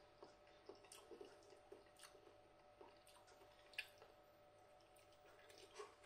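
Faint chewing of a mouthful of noodles: soft, scattered wet mouth clicks, with one sharper click a little under four seconds in.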